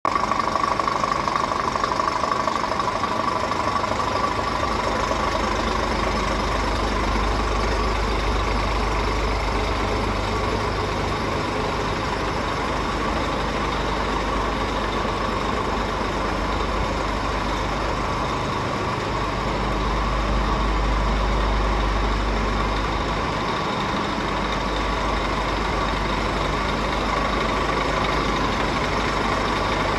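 Scania R440 tractor unit's straight-six diesel engine idling steadily, with a constant whine over the low rumble.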